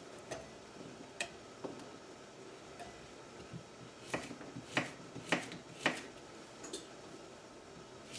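Kitchen knife slicing a cucumber into thin rounds on a cutting board: a couple of scattered taps, then from about halfway a regular run of sharp knocks of the blade on the board, about two a second.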